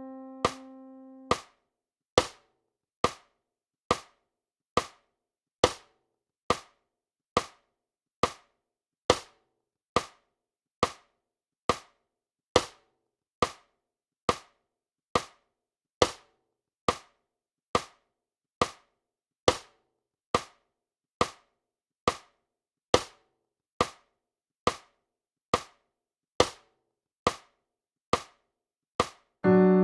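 A held piano-like note fades out in the first second and a half, then a notation-playback metronome clicks steadily, a little over once a second, through bars of rest.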